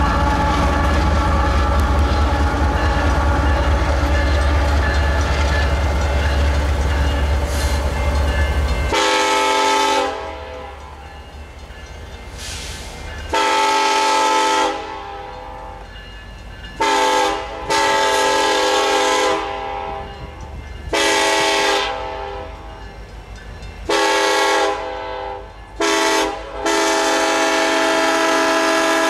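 For about the first nine seconds, a loaded coal train's rear distributed-power locomotives, GE ES44AC units, pass close by with a loud, steady rumble. After that, the approaching BNSF SD70ACe sounds its Nathan K5LLA five-chime horn in repeated long and short blasts, the long-long-short-long grade-crossing pattern. A softer train rumble fills the gaps between blasts.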